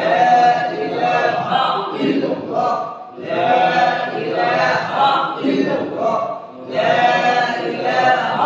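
A group of men chanting dhikr together in unison, a single phrase repeated about every three seconds with brief breaks between.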